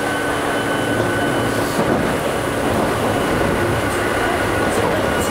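Tokyu Oimachi Line electric commuter train running along the track, heard from inside the front car behind the driver's cab. It makes a steady rumble with a few clicks of the wheels over rail joints, and a faint whine fades away about two seconds in.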